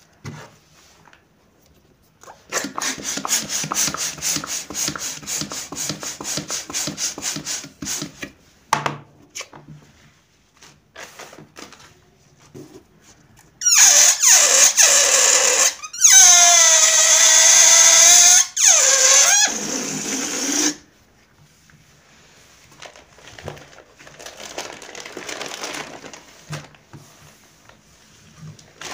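Pump inflating a latex balloon in a fast, even run of strokes, then the inflated balloon's stretched neck squealing loudly in several bursts as air is let out, the pitch wavering and falling. Near the end, soft rustling of deflated latex balloons being handled.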